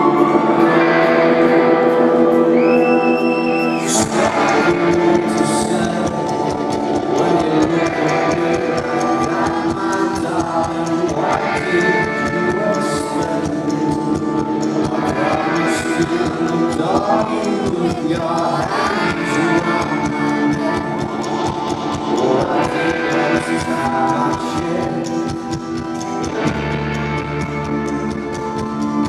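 Live rock band playing in a large hall, heard from the audience: electric guitars and held chords with a male lead vocal. The beat kicks in about four seconds in, and a heavy bass line enters near the end.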